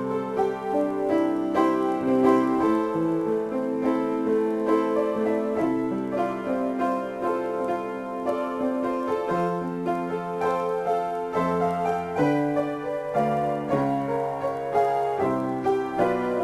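Solo piano improvisation: chords and melody notes played at a moderate, flowing pace, with notes struck about every half second and left to ring.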